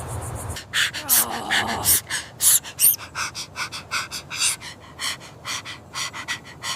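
A cartoon character panting: quick, irregular hissy breaths, several a second.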